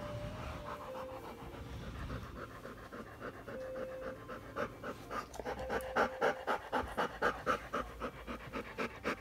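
A female Rottweiler in labor panting rapidly through an open mouth, about four breaths a second, louder in the second half.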